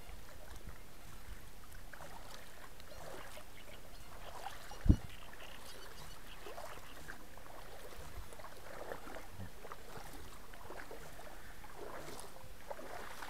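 Pond water sloshing and splashing in small irregular bursts as someone wades through the shallows toward the bank, with one sharp low thump about five seconds in.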